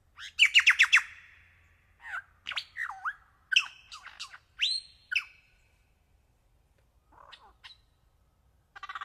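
A bird calling: a rapid run of about six sharp, falling notes, then a string of varied whistles and squawks with sliding pitch. After a pause come a few faint notes, and a harsh, buzzy call begins right at the end.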